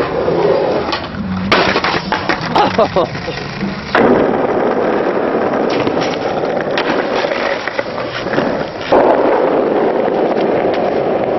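Skateboard wheels rolling on rough asphalt, with sharp clacks of the board popping and landing, including on a wooden plank obstacle. The rolling noise changes abruptly three times.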